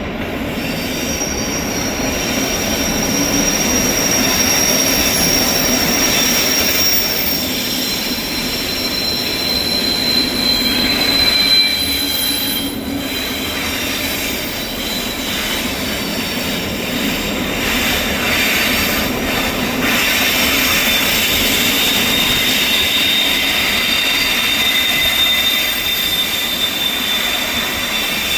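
Freight train of timber-log wagons rolling past, its wheels giving off long, high, shifting squeals over a steady rumble.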